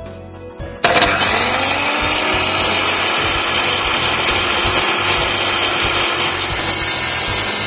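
Electric tile saw with a diamond blade switched on about a second in: the motor spins up with a rising whine and then runs steadily at speed.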